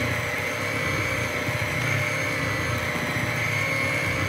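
Electric hand mixer running steadily, its beaters working a thick cooked choux (churro) dough, which is being beaten to cool it before the eggs are added.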